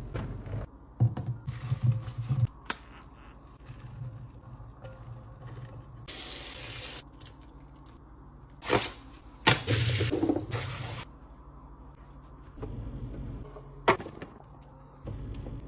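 Hands restocking a refrigerator: containers and packaging clicked, knocked and set down, with short spells of liquid being poured or running. The longest spell comes about ten seconds in.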